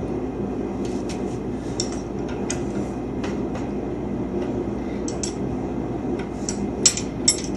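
Light metallic clicks and clinks of hand tools and suspension bolts being handled on a car chassis, with two sharper clinks near the end, over a steady low hum.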